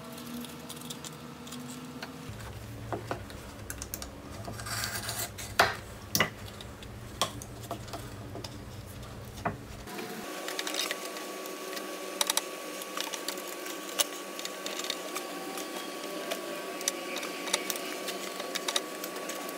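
Irregular light clicks and taps of a plastic glue bottle, a silicone glue spreader and small tools being handled and set down on 2x4 boards while wood glue is applied. A low steady background hum runs under them for the first half, then gives way to a thin steady tone about ten seconds in.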